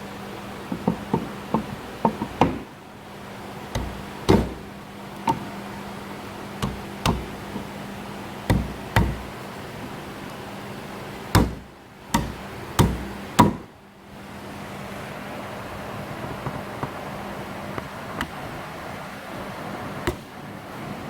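Irregular sharp knocks on wood, about fifteen of them, the densest in the first half, as a breadboard end is tapped onto glued domino tenons. A steady hiss runs underneath.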